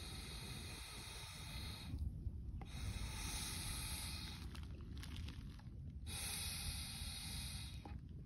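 Air blown hard through a plastic straw into a sandy antlion pit to blow the sand away: three long, hissing blows of two to three seconds each, with short pauses between them, over a steady low rumble.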